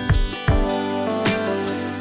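Background music with acoustic guitar and a steady beat.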